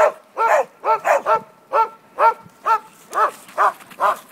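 A dog barking in a steady, even rhythm, about two to three barks a second.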